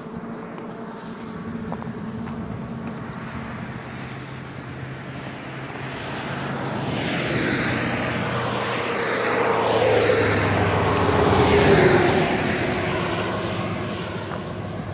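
Semi-truck passing close by. Its tyre and engine noise builds over several seconds, peaks with a falling pitch about ten to twelve seconds in, then fades away.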